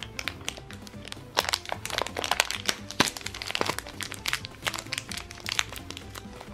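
Crinkling and crackling of a small plastic toy wrapper being pulled open by hand, densest in the first half, over steady background music.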